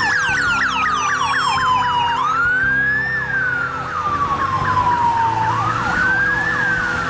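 Electronic police siren: a slow wail that falls over about two seconds and then sweeps quickly back up, twice, layered with a fast yelp of short falling sweeps several times a second.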